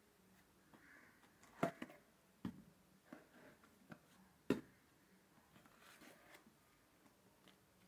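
Hands unpacking a small cardboard box and lifting out plastic resin bottles: soft rustling of cardboard and paper with a few sharp knocks and clicks, the loudest about a second and a half in and again about four and a half seconds in.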